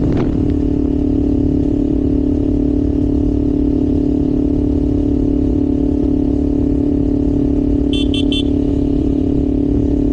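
Kawasaki Ninja 500's parallel-twin engine running at a steady, even speed while cruising, with a brief dip in pitch right at the start. About eight seconds in come three short, quick high beeps.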